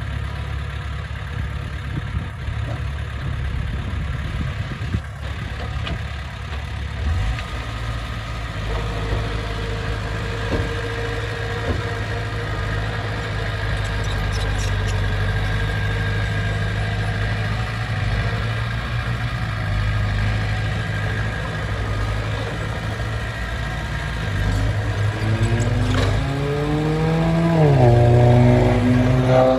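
Heavy diesel earthmoving engine running steadily under load, then revving up near the end, dropping back and climbing again.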